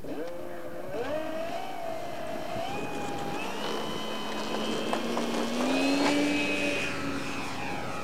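Radio-controlled P-51 Mustang model's motor and propeller spooling up for a takeoff run: a whine that climbs in pitch in steps over the first few seconds, holds high, and rises once more about six seconds in.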